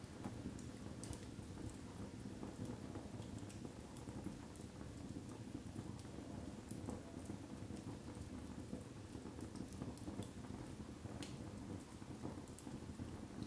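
Split firewood logs burning in a fireplace: irregular crackles and pops over a low, steady rush of the flames.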